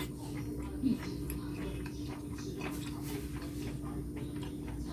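Close-miked wet chewing of baby octopus in spicy sauce: soft, irregular mouth clicks and squelches, over a steady low hum.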